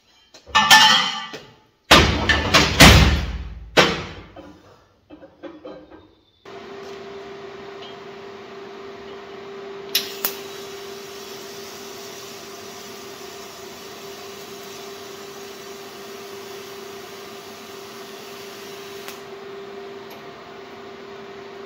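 Metal parts clanking and knocking on a steel workbench, then a welding machine's cooling fan starts and hums steadily. About ten seconds in, a click sets off a thin high hiss that lasts about nine seconds and ends with another click: a TIG welding arc being struck and held.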